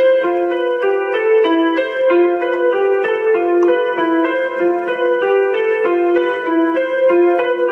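Keyboard music: a piano-like electronic keyboard playing a repeating run of short, evenly spaced notes, about three a second, with no singing.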